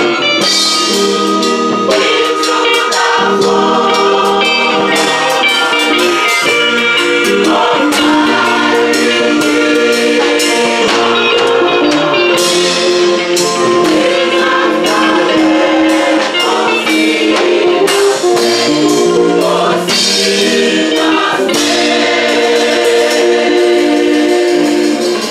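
A gospel choir of women's and men's voices singing a hymn in several-part harmony, with rhythmic sharp percussive strikes throughout.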